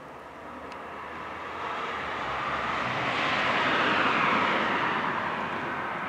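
Rushing noise of a passing vehicle, swelling to a peak about four seconds in and then fading as it falls slightly in pitch.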